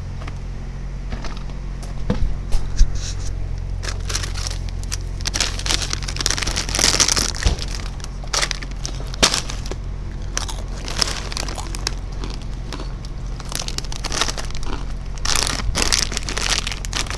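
Rustling and crinkling handling noise with many scattered clicks, from a camera being carried and moved about, over a steady low hum.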